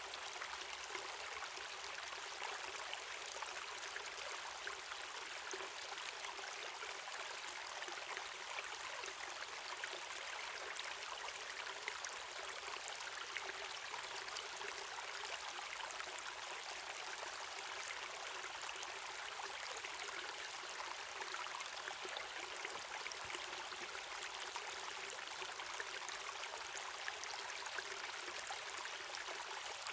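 Waterfall and stream water running: a steady splashing rush, bright and hissy with little low rumble.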